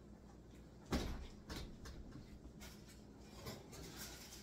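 Kitchen clatter as a glass baking dish is taken out of an oven: one sharp knock about a second in, then several lighter knocks and clicks.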